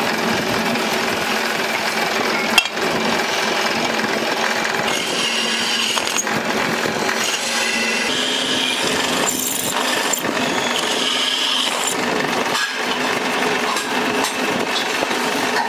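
Workshop tool noise, a steady rasping and rubbing of tools at work, with one sharp knock about two and a half seconds in.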